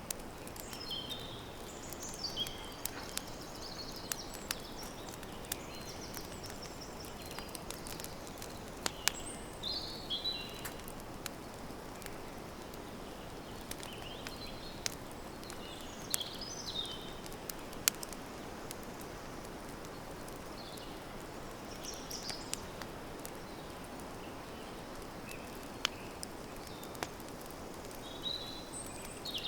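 Campfire crackling, with irregular sharp pops over a steady hiss, while birds sing short, high chirping phrases every few seconds.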